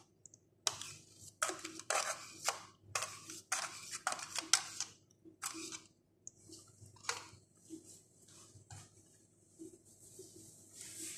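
Metal spoon scraping yogurt out of a plastic yogurt tub in a quick run of short scrapes for the first six seconds or so, then fainter scattered handling noises.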